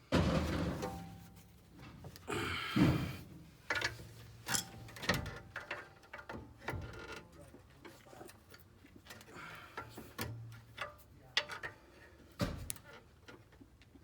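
Irregular metal knocks, scrapes and clicks as the rear brake caliper of a BMW Alpina B7 (E65) is worked loose and off with hand tools. The loudest knocks come at the start and about three seconds in.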